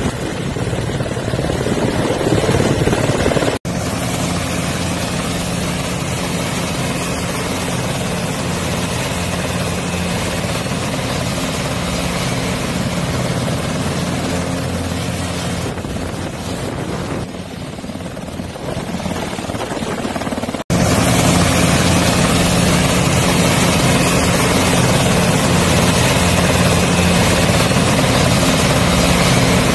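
KAI Surion helicopter running, its twin turboshaft engines and turning rotor giving a steady mechanical noise with a high turbine whine. Somewhat louder over the last third.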